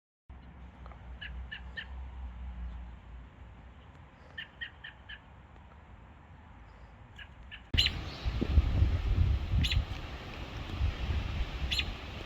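Birds chirping outdoors in quick runs of three or four short notes over a faint background. Partway through, the sound cuts abruptly to a louder, gusty rumble of wind on the microphone, with a few more chirps.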